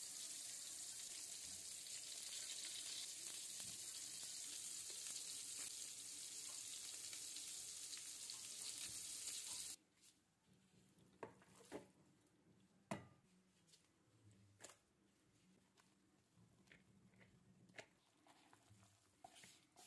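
Steady sizzle of cutlets frying in a pan, cutting off suddenly about ten seconds in. Then faint scattered clicks and knocks of bowls being handled.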